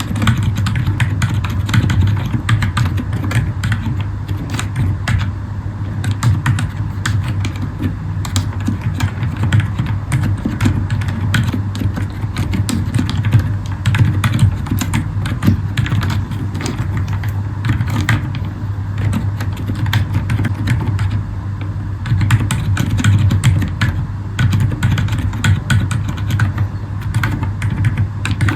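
Continuous typing on a Zifriend ZA63 mechanical keyboard with Akko Fairy silent switches: a fast, irregular stream of soft, damped key presses. A steady low hum runs underneath.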